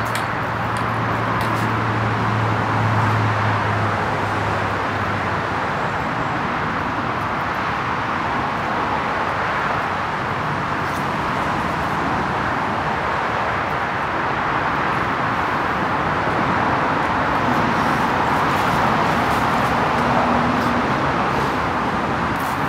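Steady road traffic noise. A low vehicle engine hum in the first few seconds fades away.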